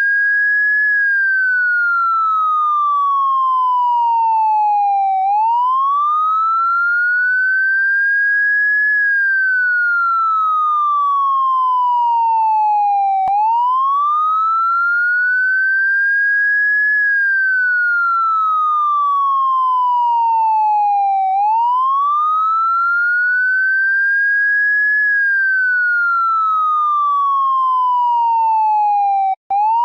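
Electronic Vietnamese police car siren sounding a slow wail: a clean tone that rises quickly and then falls slowly, one cycle about every eight seconds. It cuts out for an instant near the end and begins its rise again.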